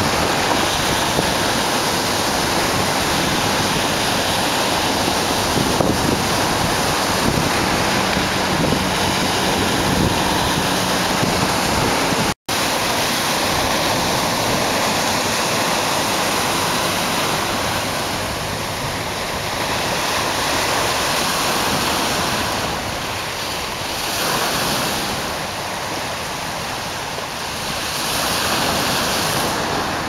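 Lake waves breaking and washing over shoreline rocks: a continuous rush of surf that swells and ebbs as the waves come in. It cuts out for an instant about twelve seconds in.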